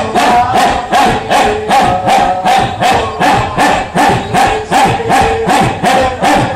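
A large group of men chanting in unison, a held sung line over a fast, even beat of about three to four strokes a second.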